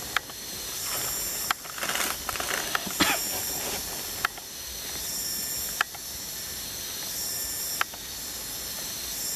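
Steady high insect chorus of tropical forest, with six sharp short clicks every second or two.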